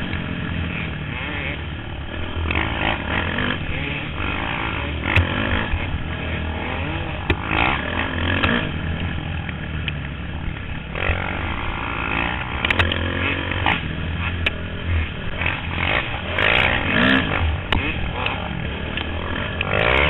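Dirt bike engine revving up and down under hard riding on a rough trail, heard close from a camera mounted on the bike, with wind on the microphone and scattered knocks and rattles from the bumps.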